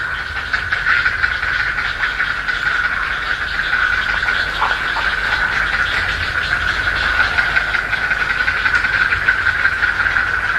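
Heron nestlings keeping up a continuous rapid ticking chatter at one steady pitch.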